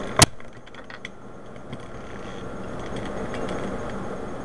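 A plastic Rubik's Cube piece snaps into place with one sharp, loud click just after the start, followed by a few faint clicks of the plastic pieces being handled.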